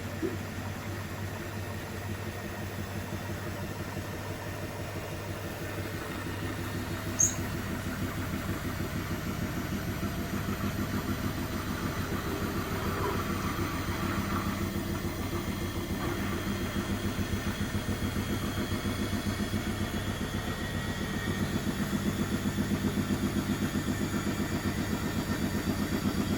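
Beko washing machine with its drum turning at low speed before the final spin, working to balance the load: a steady motor hum with a regular pulsing that grows slightly louder. A single sharp click about seven seconds in.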